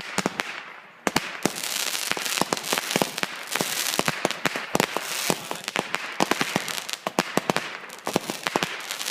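Consumer fireworks going off: a rapid, uneven run of sharp bangs and crackles over a steady hiss. It opens with a few pops and turns dense about a second in.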